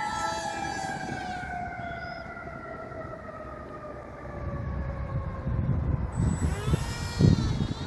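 Motor and propeller of a foamboard pusher-prop RC jet whining, the pitch sliding slowly downward for about five seconds, then a short burst of whine swinging up and down in pitch near the end. Gusty wind buffets the microphone, strongest near the end.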